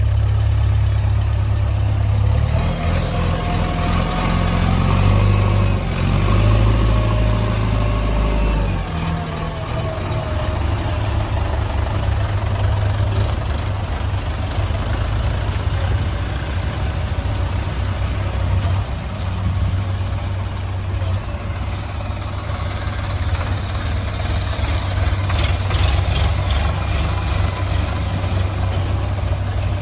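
Diesel engine of a JCB 3DX backhoe loader running steadily with a deep rumble while it digs and loads mud, the note changing about a third of the way in. There are a few brief rattles midway and near the end.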